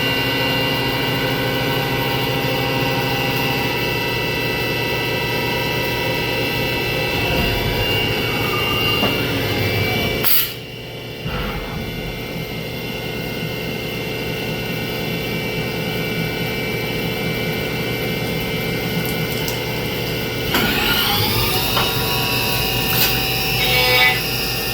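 CNC milling machine cutting billet aluminum: a steady spindle whine mixed with cutting noise. About ten seconds in there is a click and the sound briefly drops away. About twenty seconds in the spindle spins up again with a rising whine that then levels off.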